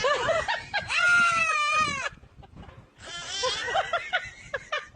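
Goat bleating: a short call, then a long call about a second in that falls in pitch at its end, followed by softer broken calls.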